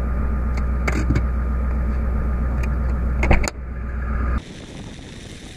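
A 4WD's engine idling with a steady low hum, heard from inside the cab, with a couple of sharp clicks as the driver's door is unlatched and opened. Near the end the engine sound cuts off abruptly and gives way to quieter wind noise on the microphone.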